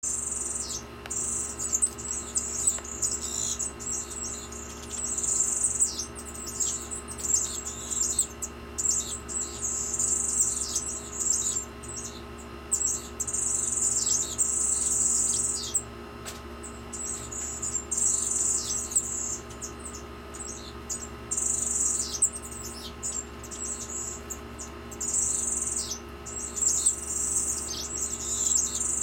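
Small finches singing in an aviary: high, thin, buzzy trilling phrases repeated every couple of seconds, over a steady low hum.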